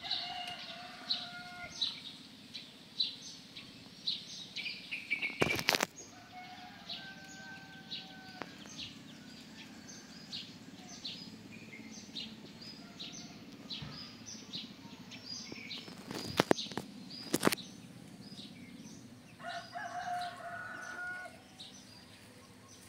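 A bird chirping over and over, short high notes about once or twice a second, with a rooster crowing three times. Three sudden sharp noises, the loudest sounds, come about a quarter of the way in and twice close together past the middle.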